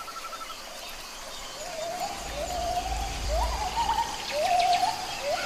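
A bird calling over and over: short notes that rise and then hold level, about one a second, with a brief rapid trill of a higher note near the start.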